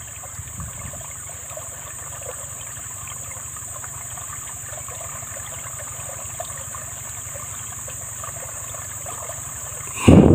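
Shallow stream water trickling steadily, with a brief loud sound just before the end.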